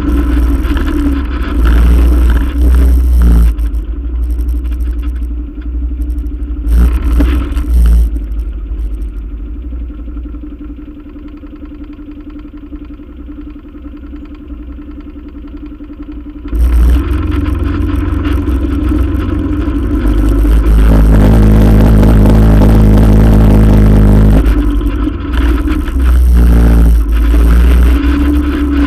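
ATV engine running, heard close up from the front rack, with some knocks and rattles. It eases off for several seconds in the middle, then runs loud and steady again.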